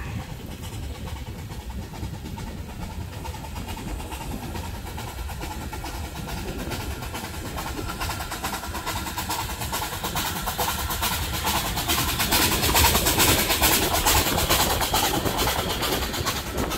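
Narrow-gauge steam train approaching and running past, its locomotive and carriages growing louder from about eight seconds in. It is loudest a few seconds before the end, with a quick, even clatter.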